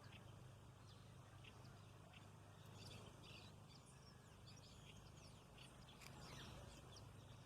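Faint scattered bird chirps, short calls and quick pitch sweeps, over a low steady background hum.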